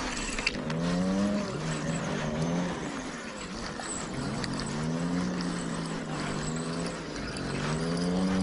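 Chainsaw from nearby tree felling, its engine running loud with its pitch dropping and rising again every two to three seconds.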